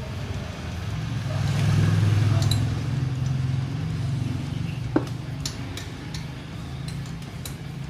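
An engine idling steadily, a little louder about two seconds in, with a few light metallic clinks, the sharpest about five seconds in.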